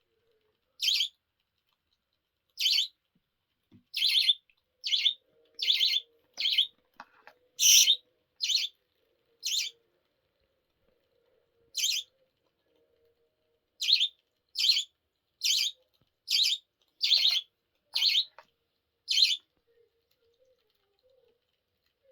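A small pet bird calling in short, shrill chirps, about eighteen of them, each under half a second, coming at uneven intervals with a pause in the middle.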